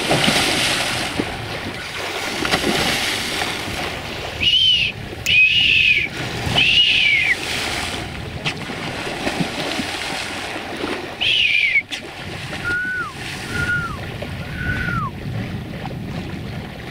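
Sea water rushing and splashing along the hull of a moving sailing yacht. Over it come short whistles that each drop in pitch at the end: four higher ones through the middle, then three shorter, lower ones near the end.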